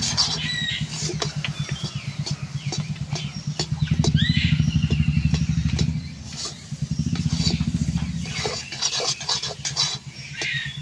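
Metal spatula scraping and knocking against an iron karahi as a thick semolina-and-jackfruit dough is stirred fast, many short scrapes in quick succession. Under it a low, rapidly pulsing hum like a small engine running goes on throughout, easing for a moment about six seconds in, with a few brief bird chirps.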